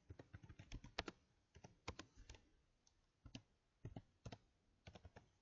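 Faint typing on a computer keyboard: irregular keystrokes in short runs of a few clicks with brief pauses between them.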